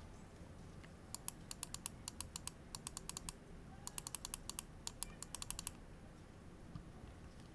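Typing on a Cyberboard R3 mechanical keyboard with lubed, filmed Holy Panda tactile switches in an aluminium plate and GMK keycaps: quick runs of keystrokes starting about a second in, with a short pause in the middle, stopping a couple of seconds before the end.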